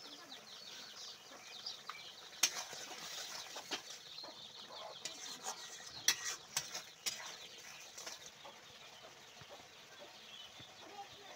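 Long metal spatula stirring a thick duck curry in a large aluminium pot, knocking and scraping against the pot's metal side several times, over a faint steady hiss.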